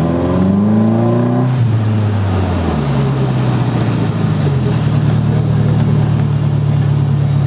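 Four-cylinder engine of a Thoroughbred Stallion three-wheeler running through Cherry Bomb mufflers. Its pitch climbs under acceleration for about a second and a half, then falls away and settles into a steady cruising note.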